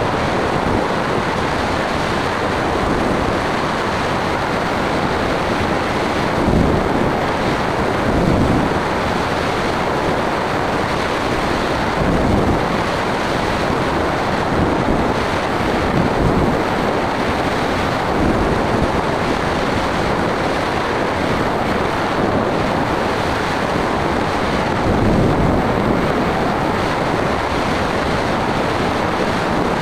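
Steady rush of airflow buffeting the microphone of an aircraft-mounted camera in flight, swelling in gusts every few seconds; no engine note stands out.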